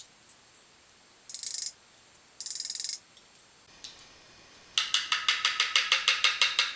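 Metal spoon scraping the inside of a tin can to empty it. Two short scrapes come first, then a fast run of about nine scraping strokes a second near the end.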